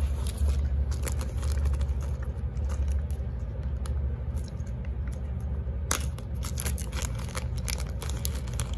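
Thin clear plastic accessory bag crinkling and rustling as fingers work it open, with small plastic probe parts clicking against each other inside. The crinkling grows denser about six seconds in. A steady low hum runs underneath.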